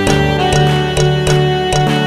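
Background music: held chords over a steady beat of about three strokes a second, with the chord shifting right at the start.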